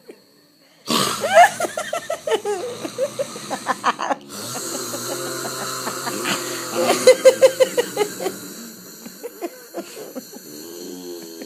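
A person snoring loudly in rough, rattling snores, starting suddenly about a second in, with a short break around four seconds in.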